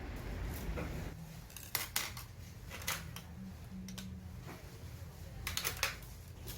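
Dishes and cutlery clinking: a few sharp clinks about two and three seconds in and a quick cluster near the end, over a low steady hum.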